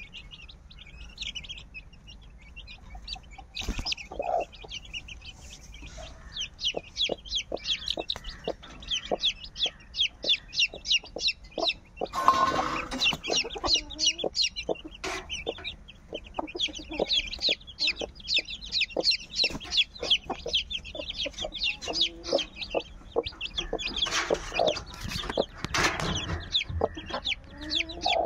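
Young chickens peeping: a dense, continuous stream of short high cheeps, with some lower calls mixed in and a brief burst of rustling noise near the middle.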